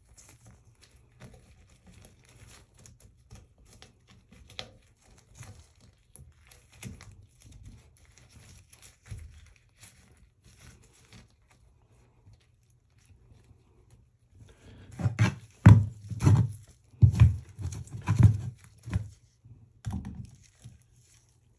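Gloved hand rubbing and scuffing around the inside of a toilet drain pipe, faint rubs and small clicks. About fifteen seconds in comes a quick run of heavy thumps and knocks as a plastic toilet repair flange is pushed and knocked down into the pipe.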